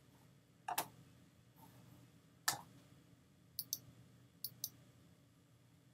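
Computer mouse button clicks: a softer knock just under a second in, one sharp click at about two and a half seconds, then two quick double clicks, over a faint low hum.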